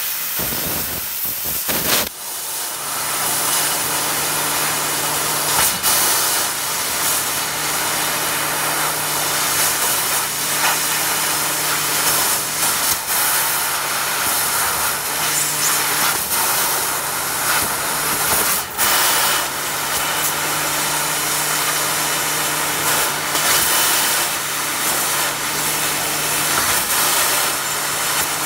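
Fiber laser cutting machine cutting 3 mm stainless steel sheet: a steady loud hiss from the cutting head and the spark stream. Under it a low hum starts and stops every few seconds, and there are a few sharp clicks.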